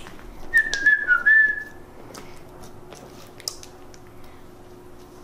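A short, high whistle of a few slightly falling notes, then soft clicks and crackles as a large batch of slime is pressed and stretched on a plastic sheet.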